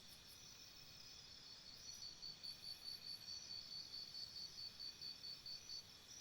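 Faint insects chirping: a steady high trill, joined about two seconds in by a pulsing chirp repeating about four times a second.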